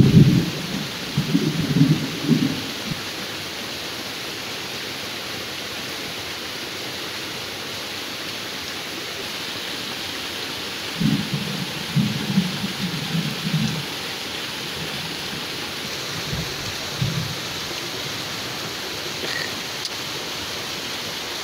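Steady heavy rain falling on a small stream and the leaves along its banks. Low rumbles come in bursts right at the start and again about halfway through.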